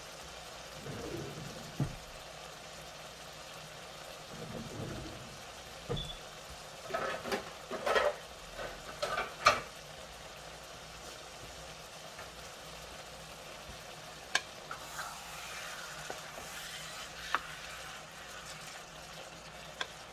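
Shrimp and sliced smoked sausage with onions and peppers sizzling steadily in a large skillet. There is a cluster of sharp knocks and clatters around the middle, and a few single clicks later.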